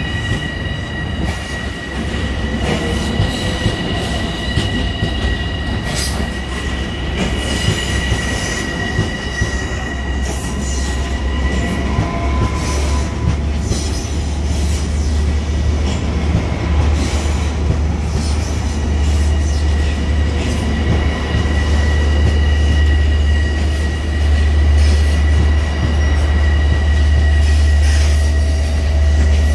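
Long Island Rail Road train wheels squealing as an electric train runs through the station switches. The steady high-pitched squeal fades about twelve seconds in and returns faintly near the end, over a low rumble that grows louder in the second half.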